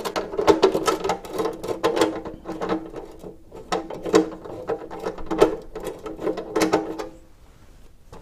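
Small electric screwdriver running steadily with clicks and rattles, backing a screw out of the motorcycle's aluminium belly-pan plate; it stops about seven seconds in.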